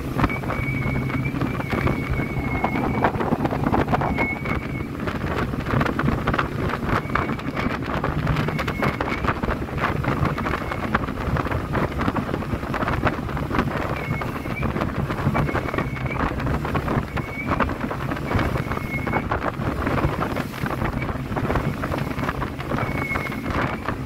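RIB speedboat running at speed: a steady engine hum under heavy wind buffeting on the microphone.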